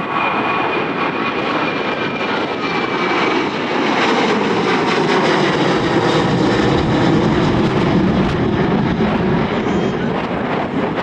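A passing airliner's engines: a high whine that fades over the first few seconds, then louder engine noise building from about four seconds in and holding to the end.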